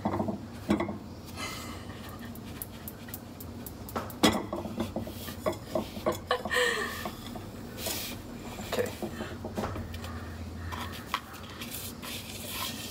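A plastic mixing bowl knocking and scraping against a metal saucepan as a powdery dry mix is tipped and shaken into it, with scattered light clunks and one sharper knock about four seconds in.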